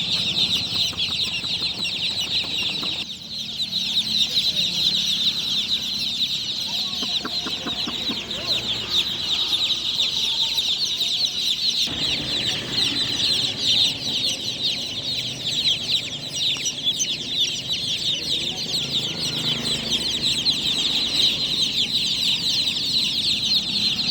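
A large crowd of newly hatched chicks peeping without pause, dozens of high, short, falling chirps overlapping into one dense chorus.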